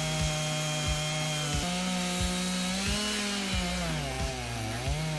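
Chainsaw cutting into a tree, its engine running hard under load. Its pitch lifts a little, then sags about four seconds in as the chain bogs in the cut, and recovers near the end.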